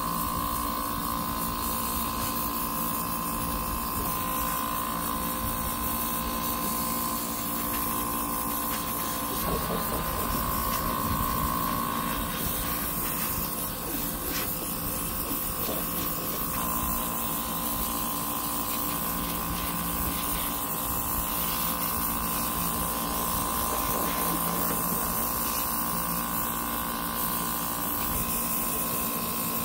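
Small airbrush air compressor humming steadily, with the hiss of air and paint spraying from the airbrush.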